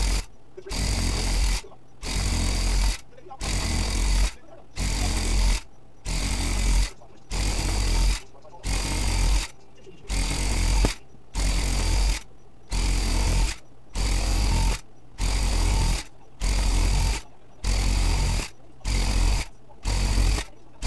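Electric rug tufting gun running in repeated bursts of about a second each with short pauses between, about sixteen in a row and coming slightly quicker near the end. Each burst is a rapid mechanical buzz with a low hum underneath, as the gun punches yarn into the backing cloth.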